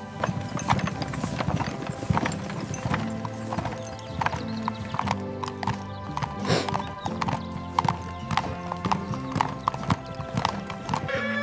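Horse hooves clopping irregularly on hard ground, over steady background music.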